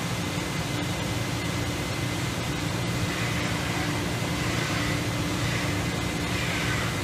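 Studer CT-960 CNC grinder running: a steady whir and hiss with a low hum, and a faint higher whine in the second half.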